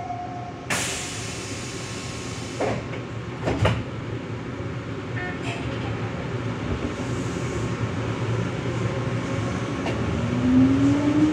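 Nagoya subway train on the Tsurumai Line pulling out of a station. There is a burst of air hiss about a second in and two knocks a few seconds later, then a steady running rumble. Near the end the motor whine rises in pitch as the train accelerates.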